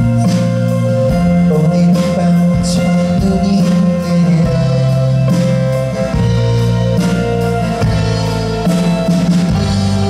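Live band music: an acoustic guitar strummed over a drum kit, with a man's sung vocal part.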